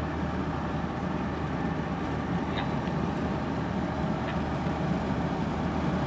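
Vehicle running with steady road noise and a low engine hum, with two faint short high chirps in the middle.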